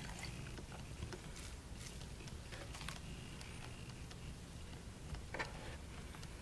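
Soft, scattered clicks and taps of hands handling a clay leg and pressing it onto a clay sculpture's body, with the clearest tap about five seconds in, over a low, steady room hum.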